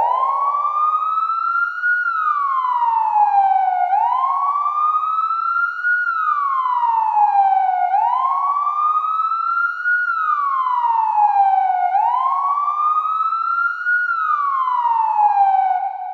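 Police siren wailing in a slow, even rise and fall, each sweep taking about four seconds, four times over. It starts abruptly and fades away at the end.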